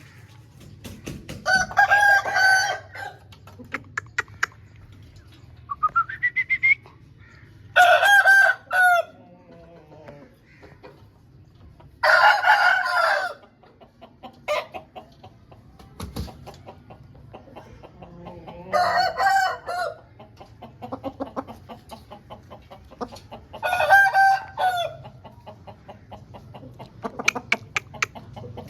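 Aseel roosters crowing: five short crows of about a second each, spaced several seconds apart. Quieter short calls and clicks come in between.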